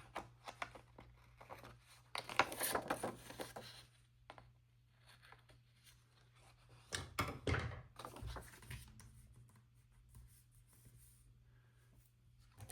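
Paper stickers being handled, peeled and trimmed: two longer tearing rasps, one a couple of seconds in and one about seven seconds in, with soft taps and clicks between.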